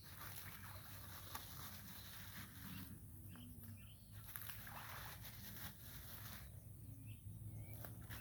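Faint rural outdoor ambience with a few short bird chirps, coming in two pairs, over a low steady rumble.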